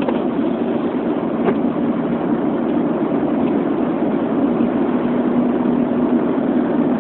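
Steady road and engine noise inside a moving car's cabin, an even low hum with a faint steady tone that grows a little stronger in the second half.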